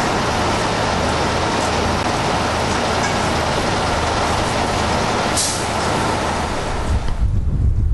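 Steady city road traffic with a low engine hum, and a brief hiss about five seconds in. Near the end, wind buffets the microphone with a low rumble.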